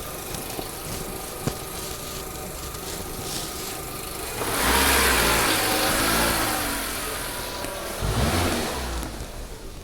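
Renault Duster engine idling, then revved about halfway through and easing back down, with a second short rev near the end.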